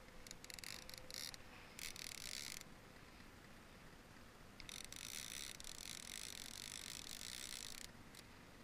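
Fishing reel buzzing in bursts with a fish on the line: two short bursts in the first few seconds, then a longer one of about three seconds in the middle.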